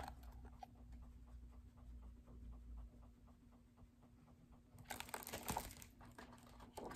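Near silence with a faint steady hum, then about five seconds in, a couple of seconds of paper rustling as a large hardcover picture book is handled and its page turned.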